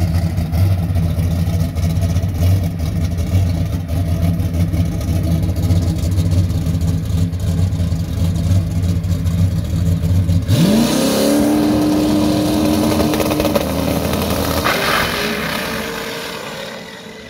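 Drag-racing Camaro's engine idling steadily on the starting line, then launching about ten seconds in: the pitch sweeps sharply up and holds high, steps again a few seconds later, and the sound fades as the car pulls away down the strip.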